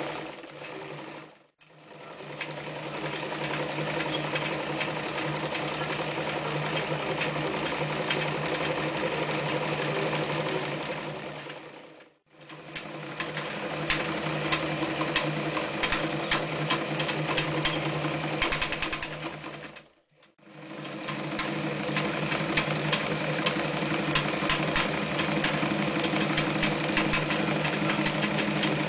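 Janome-built Winfield FW 161 electric sewing machine running at speed, stitching through thick layers including four layers of leather. Fast needle ticking over the motor hum; it stops briefly and starts again three times.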